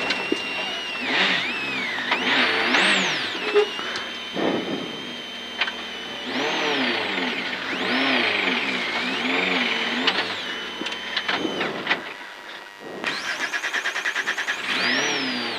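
Subaru Impreza WRC's turbocharged flat-four engine, heard inside the cabin, revving up and falling back over and over as the car is manoeuvred and turned around on a gravel stage after a spin. Near the end there is a fast, even crackle for a couple of seconds.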